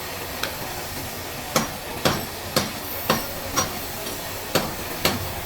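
A run of sharp knocks, about two a second, five in a row, then three more near the end, over a steady background hiss.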